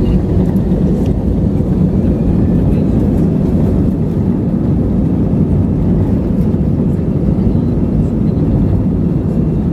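Steady, loud rush of an Airbus airliner's jet engines and airflow, heard from inside the passenger cabin.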